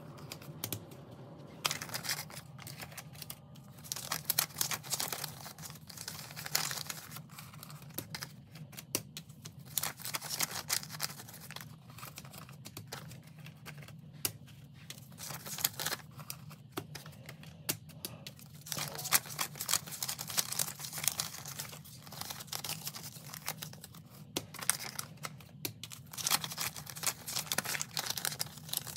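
Paper banknotes rustling and crinkling as bills are pulled from cash envelopes, shuffled through and laid onto piles, with many irregular crisp snaps and flicks of paper, over a faint steady low hum.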